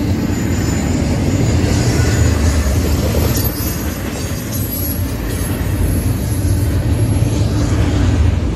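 Double-stack intermodal container cars of a freight train rolling past on the rails: a steady, loud rumble of steel wheels on track.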